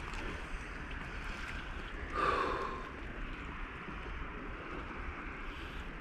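Steady hiss of shallow seawater washing at the shore, with a short breathy puff about two seconds in that is the loudest moment.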